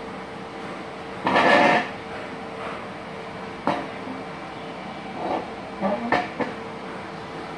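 Stick (MMA) welding arcs, run at about 300 amps each from a Multipro MMAG 600 welder, crackling in short bursts: a loud one about a second and a half in, a sharp click near the middle, and several shorter bursts around five to six seconds in, over a faint steady hum.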